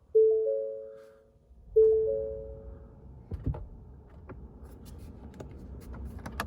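Ford F-250's dashboard warning chime: a three-note chime at the start and again about 1.6 s later, each fading out. After that comes a low rumble with scattered clicks and a thump about 3.5 s in.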